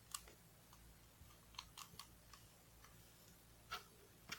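Faces of a plastic Rubik's Cube being turned by hand: a few short, quiet clicks, the clearest one just after the start and another near the end.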